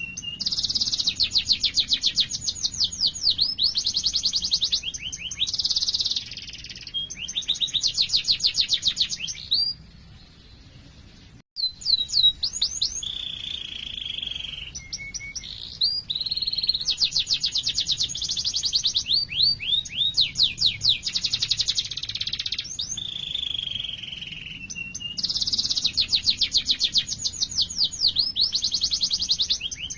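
Domestic canary singing: long rolling trills of fast, evenly repeated high notes alternating with sustained chirping phrases. There is a brief pause about ten seconds in, after which the song resumes.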